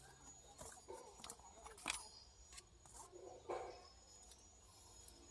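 Faint, scattered clicks and light knocks of tools and metal parts being handled.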